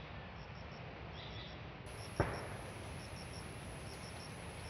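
Outdoor ambience of insects chirping in short, high groups of two or three over a low steady rumble. A steady high-pitched buzz joins about two seconds in, and a single sharp click comes just after it.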